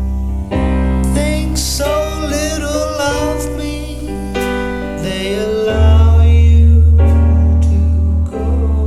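Jamo Power 230R loudspeakers playing a slow vocal ballad: a singer over instrumental accompaniment, with deep sustained bass notes that swell loudest about six seconds in.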